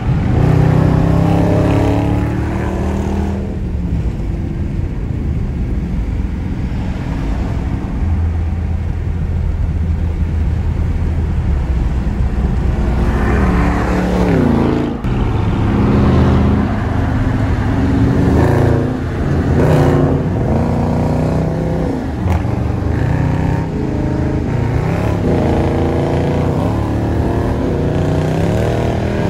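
Dodge Charger R/T's Hemi V8 under hard driving: the engine pulls up in pitch several times and eases off between pulls, with a sudden dip about halfway through and steadier cruising in the first third.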